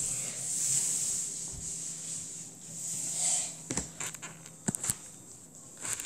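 Rubbing and handling noise on a handheld phone's microphone, swelling and fading, with three sharp clicks in the second half.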